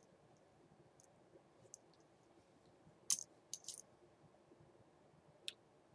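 Quiet room tone with a few faint, short, sharp clicks scattered through it, the loudest about three seconds in.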